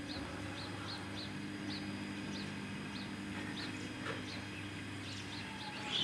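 Front-loading washing machine with water in its drum, giving a steady low electrical hum that fades a little near the end, while a small bird chirps over and over, a few short high chirps a second.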